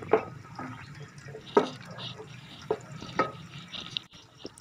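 Wooden spoon stirring sliced garlic and whole spices frying in ghee in a steel pan, with a light sizzle and about four sharp knocks of the spoon against the pan, one of them ringing.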